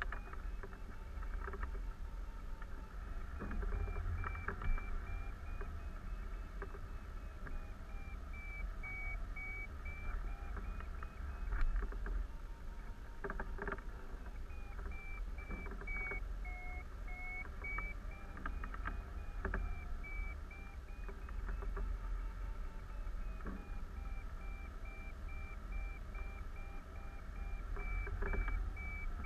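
Hang gliding variometer beeping rapidly, its pitch drifting slowly up and down, the sign of the glider climbing in a thermal. Low wind rumble on the microphone runs underneath, with a few scattered clicks.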